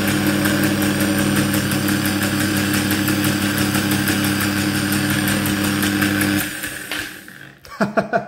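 Electric motor of a partly assembled Parkside PSTK 800 D3 jigsaw running at a steady speed with a constant hum. About six and a half seconds in it is switched off and spins down to a stop.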